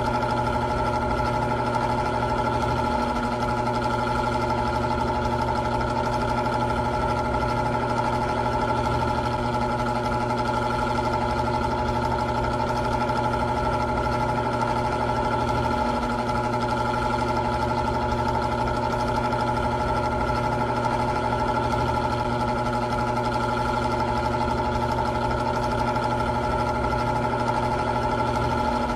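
Old electric fan running steadily: an even motor hum with a few steady tones over the rush of air from the blades.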